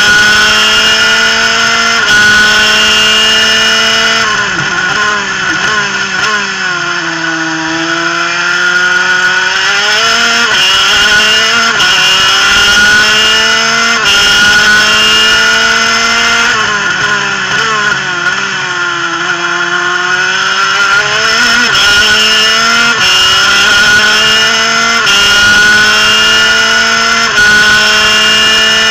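Superkart's 250 cc two-stroke engine running at high revs on track, heard from onboard. Its pitch climbs in short steps with brief drops, and twice falls away and climbs back, with a steady rush of wind over it.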